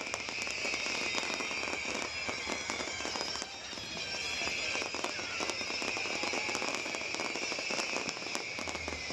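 Fireworks crackling: many rapid small pops and crackles following close on one another, with no single big bang standing out.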